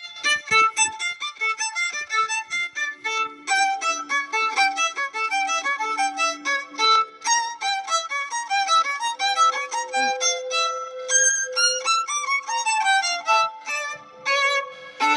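Music: a fast violin tune of many short notes a second over a held lower note, starting suddenly.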